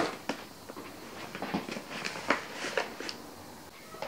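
Shopping being handled and unpacked from a mesh bag: irregular clicks, knocks and rustles of packaging, with the loudest knock right at the start.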